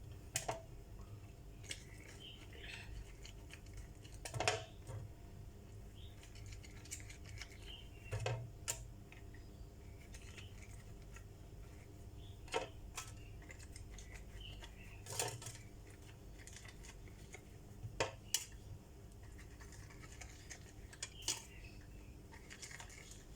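Scattered light clicks, taps and clinks of kitchen utensils against a baking tray with a silicone muffin mould, about a dozen spread through the stretch, as the mould is greased with oil.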